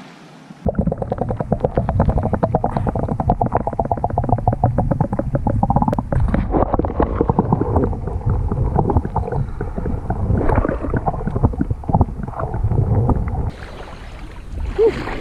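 Seawater gurgling and bubbling, heard muffled with the microphone under water. It is a dense run of rapid, irregular bubbling clicks that starts suddenly about a second in and cuts off suddenly near the end.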